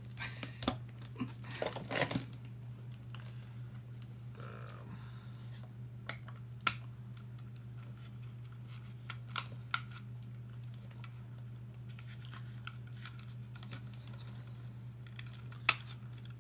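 Small plastic toys being handled and sorted by hand: scattered clicks and light knocks, with some rustling in the first two seconds, over a steady low hum.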